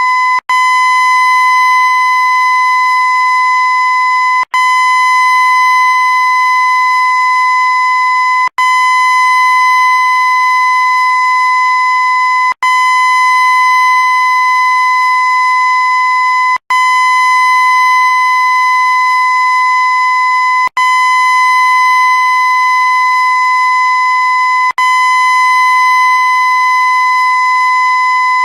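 Looped air horn sample: one loud, steady, high-pitched blast that never changes pitch, cut off for an instant and restarting about every four seconds.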